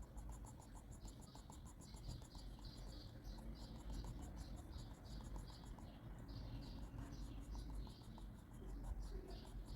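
Graphite pencil scratching across drawing paper in short, quick strokes, a couple a second, as in shading or hatching.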